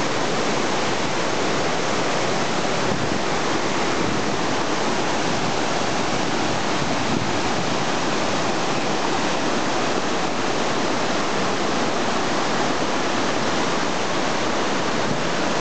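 Steady rush of water tumbling over rock cascades below a large waterfall, an even, unbroken roar.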